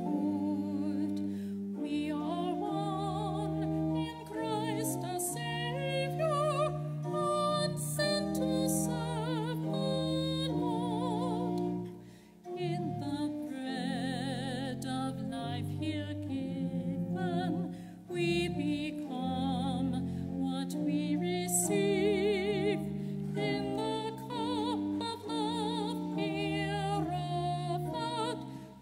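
A hymn sung by a solo voice with vibrato over held keyboard chords, with short breaths between phrases about 12 and 18 seconds in.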